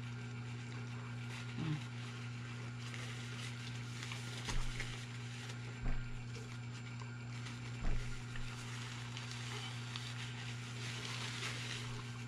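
Steady low electrical hum with a faint crackly hiss, broken by three soft thumps about a second and a half apart as the burger is handled and set down on its paper wrapper on a wooden table.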